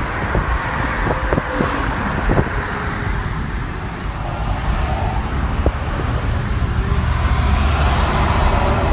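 Road noise inside a car at highway speed: a steady low tyre-and-engine rumble with wind hiss, growing louder over the last two seconds. A few light knocks in the first three seconds.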